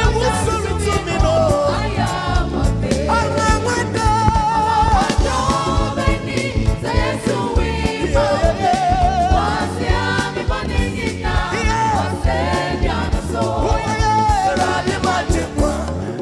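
Live gospel music: a lead singer with backing voices over keyboard, bass and drums, singing with a wavering vibrato over a steady beat.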